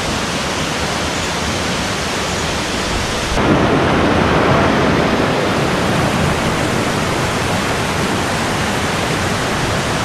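Steady rush of a forest waterfall and rocky stream cascades. About three seconds in, the sound jumps to a louder, fuller rush.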